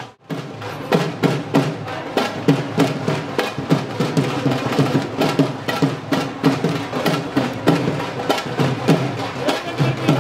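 Music with a fast, steady percussion beat, briefly cutting out at the very start.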